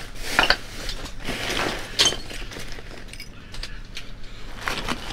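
Junk being rummaged through by hand in a dumpster: an irregular run of clinks, rattles and knocks as items are shifted, busiest about half a second in and again around two seconds.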